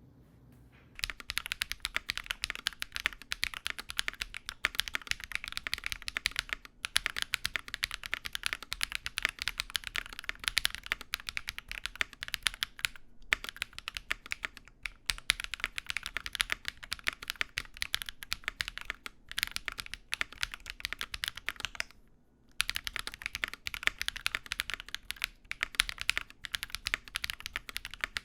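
Fast, continuous typing on an Enter67 custom mechanical keyboard with an aluminium plate and BSUN × KEYS U Studio Bunny linear switches: light 42 g early-bottom-out linears with a PC top housing, PA bottom housing and LY stem. The keystrokes start about a second in and pause briefly a little past two-thirds of the way through.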